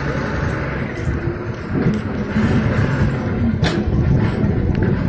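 Low, steady rumble of a docked ferry's engines running, with a single sharp click about three and a half seconds in.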